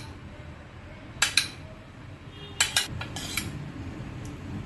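A metal spoon clinking and scraping against a pressure cooker as thick curry is spooned out into a steel serving bowl: several sharp metal clinks, some in quick pairs about a second apart.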